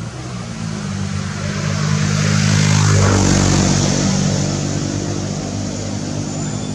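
A motor vehicle driving past, its engine growing louder to a peak about three seconds in and then fading away.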